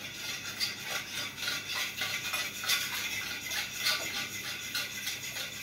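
Sugar being whisked into lemon and ginger water to dissolve it: repeated gritty scraping strokes of the undissolved granules against the bowl, a few a second.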